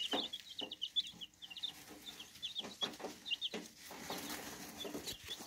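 Birds chirping: a dense run of short, high-pitched chirps, several a second, with a few lower clucking sounds.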